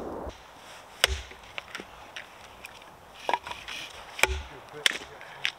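Wood being chopped: about five sharp, irregularly spaced strikes, with lighter knocks and snaps of wood between them.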